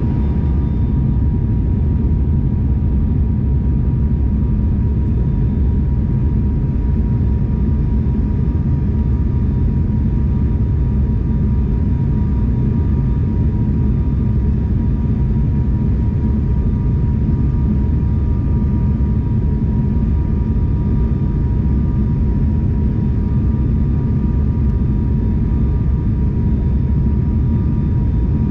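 Airliner cabin noise during descent: a steady engine and airflow drone with a constant high whine running through it.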